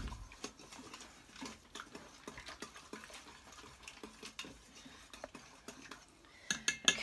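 Metal utensil stirring cornstarch-thickened gravy in a stainless steel Instant Pot inner pot: soft scraping with scattered light ticks against the pot, then a brief run of louder metal clinks near the end.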